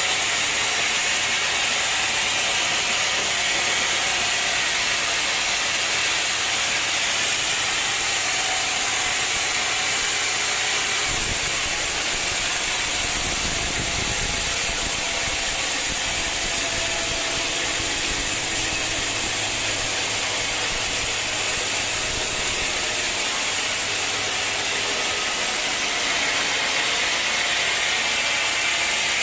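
Sawmill machinery running steadily, a loud even hiss of machine noise. About eleven seconds in a deeper rumble joins it, and it drops away again near the end.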